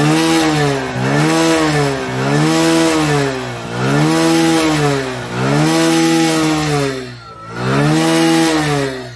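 BS6 motorcycle engine being revved in repeated throttle blips, about six times, its pitch rising and falling with each one. The revving blows condensation water out of the silencer.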